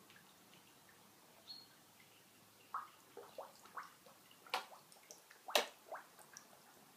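An irregular run of small water drips and plops at a pond surface, about nine quick plinks starting near three seconds in, the loudest just past the middle.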